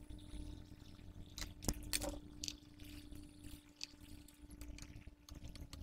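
Hot air rework station blower running with a steady hum and a soft airflow hiss while a surface-mount IC is desoldered and replaced, with a few sharp clicks of tools on the circuit board.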